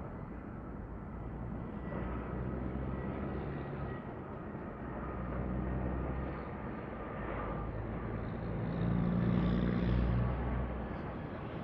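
Distant jet airliner engines rumbling, with a faint whine above the rumble; the noise swells to its loudest about nine seconds in.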